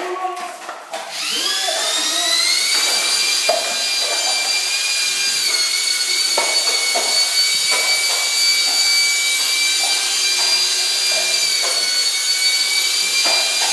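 An electric power tool's motor starts about a second in and spins up to a steady high whine, which holds to the end with a slight dip in pitch. A few separate knocks sound over it.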